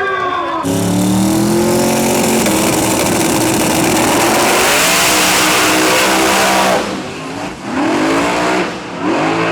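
Pro Mod drag car's V8 engine running flat out for about six seconds, then dropping off, followed by two short revs that climb in pitch near the end.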